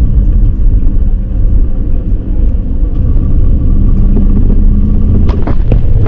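A motor vehicle's engine running steadily under way, with a heavy low rumble of engine and road noise. A few short clicks or knocks come near the end.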